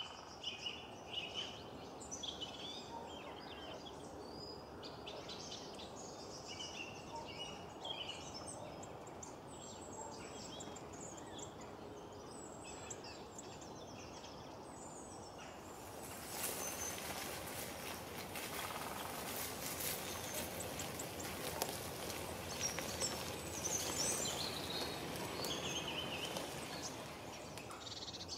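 Forest ambience: small birds chirping and calling again and again over a steady background hiss. About halfway through, a louder hiss with fine crackling joins.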